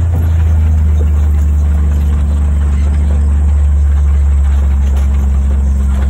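Utility vehicle engine running steadily with a low drone while driving slowly along a grass trail.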